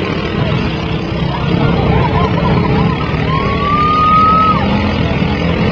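Steady din of small lawn mower engines running. About two seconds in there is a short warbling tone, then a single held tone that rises slightly for about a second.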